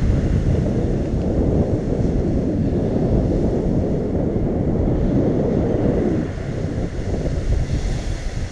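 Wind buffeting an action camera's microphone: a steady low rumble.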